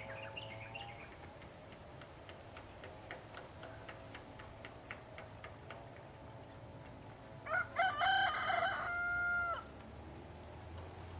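A rooster crows once near the end, a single crow of about two seconds ending on a held note. It is preceded by a run of quick, faint ticks.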